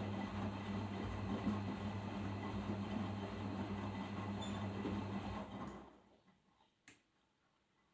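Arçelik 5083 washing machine running in its final rinse: a steady hum with a rush of water that cuts off suddenly about six seconds in, followed by a single click.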